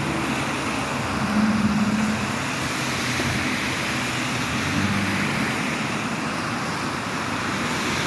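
Road traffic on wet pavement: a steady hiss of tyres on the wet road with the low hum of passing vehicle engines, a little louder about a second in.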